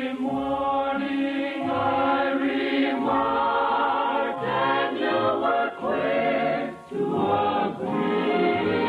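Choir singing with orchestral accompaniment, one sustained song passage with a short break between phrases near the end. It is heard through the narrow, muffled band of an early-1950s radio transcription.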